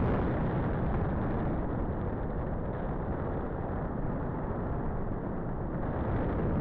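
Wind from the flight's airspeed buffeting a camera microphone carried on a paraglider in flight: a steady, low rush of noise with no tones.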